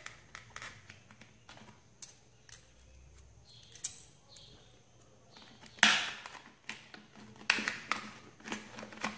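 Light clicks and taps from an all-metal safety razor being handled, then several short rustling, crinkling strokes from the plastic blister pack as the razor is pressed back into its card.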